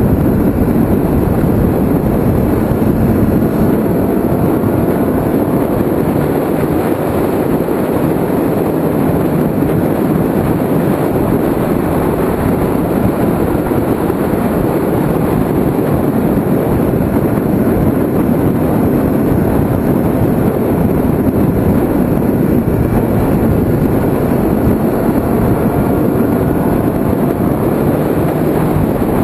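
Kawasaki ZX-6R's inline-four engine running at speed, heard from a mirror-mounted camera under a heavy, steady rush of wind noise, its note gliding up now and then as the throttle opens.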